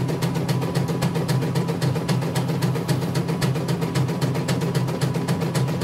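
CNY computerized embroidery machine stitching: an even clatter of about ten stitches a second over the steady hum of its drive motor. It is running smoothly without thread breaks, on a newly replaced motor.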